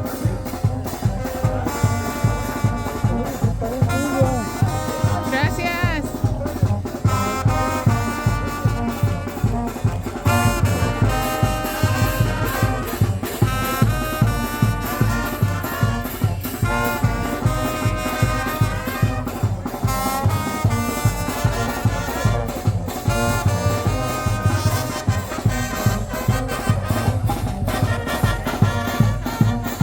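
Brass band playing live, with trombones and trumpets carrying held melody lines over a steady, driving drum beat.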